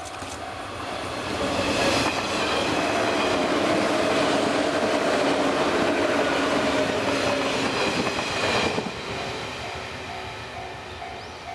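JR 115 series electric train passing over a level crossing at speed: wheels clattering and running noise, with the steady whine of its traction motors. It swells about two seconds in and fades after about eight and a half seconds. The crossing's alternating warning bell rings under it and is heard plainly again as the train recedes.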